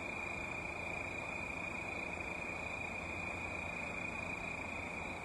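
Crickets singing in a steady chorus, one continuous high trill that does not break, over a faint even background hiss.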